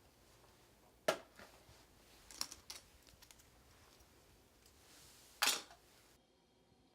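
A few sharp clicks and knocks over a quiet room: one about a second in, a quick cluster around two and a half seconds, and the loudest near the end.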